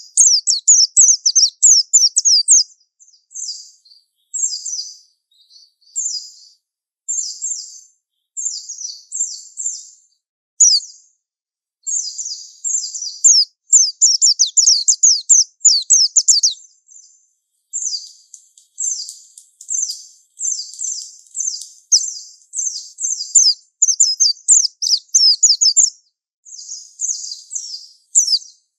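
Japanese white-eye (pleci) singing its long, rapid, high-pitched warbling 'ngalas' song, a fast string of chirps and downward-sweeping notes in phrases of one to two seconds with short breaks between them. This is the kind of song used as a lure to set young birds singing.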